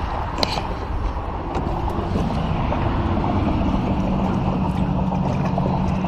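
Steady wind rushing over the microphone on an open aluminium boat. A single sharp knock about half a second in, and a low steady hum joins from about two seconds.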